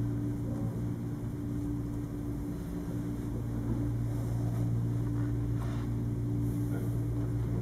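Steady low hum of room tone, with no one speaking.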